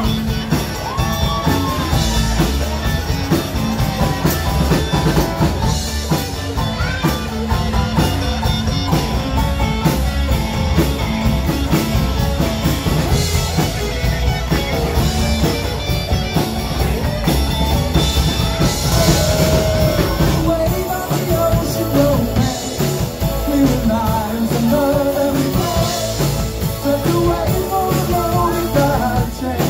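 Live rock band playing loudly: drum kit, electric guitar and a singing voice.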